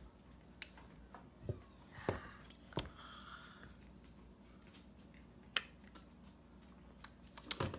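A handful of light, sharp clicks and taps at uneven intervals over quiet room tone.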